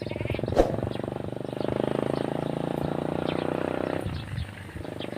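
A small engine running with a rapid, even firing beat, growing louder about a second and a half in and dropping away at about four seconds. A sharp knock sounds about half a second in.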